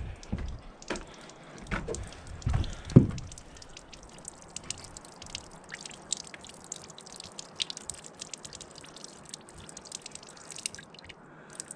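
Water from the sawmill's blade-lubrication tank dripping rapidly from the outlet tube through the newly fitted valve, the flow being adjusted. A few knocks of handling come in the first three seconds, and the dripping stops about a second before the end.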